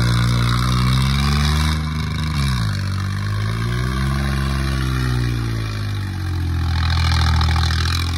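John Deere tractor's diesel engine running under heavy throttle as the tractor rears up on its rear wheels in a wheelie. The revs sag twice and climb back each time.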